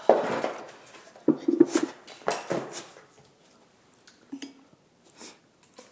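Metal chopsticks clinking and scraping against a cast-iron grill pan and small dishes: several sharp clinks in the first three seconds, then fainter taps.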